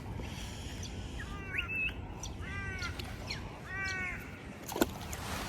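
A crow cawing three times, roughly a second apart, followed by a single sharp click near the end.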